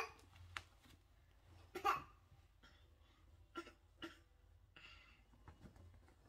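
A baby making a few short, faint vocal sounds, with soft rustling and small clicks as baby clothes are handled.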